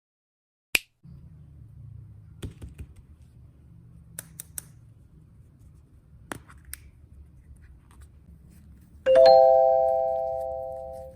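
A few light clicks and taps. Then a single bell-like ding about nine seconds in, ringing with several pitches and slowly fading.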